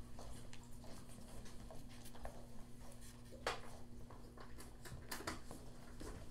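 Scattered footsteps and small knocks of people moving about on a hard floor, the sharpest about three and a half seconds in, over a steady low electrical hum.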